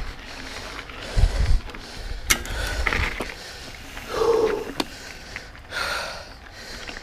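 A mountain biker breathing hard while pedalling up a steep climb, with several heavy exhales. Low thuds about a second in and a sharp click a little later, from the bike and camera jolting on the rough trail.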